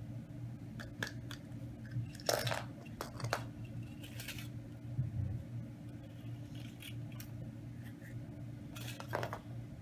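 Scattered small clicks and crinkles as a child handles and pries at a plastic Kinder Surprise capsule and the small toy's wrapper inside it, over a steady low hum.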